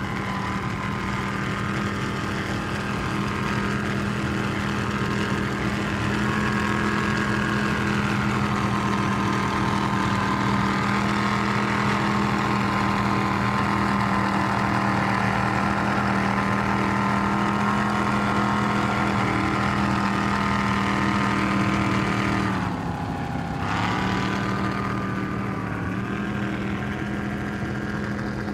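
High-performance offshore powerboat engines running steadily at high speed. About 23 seconds in the engine note drops in pitch and level briefly, then picks back up.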